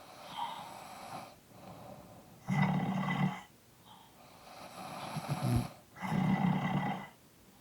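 Two people snoring together. Loud snores come twice, about three and a half seconds apart, with softer, breathier snoring in between.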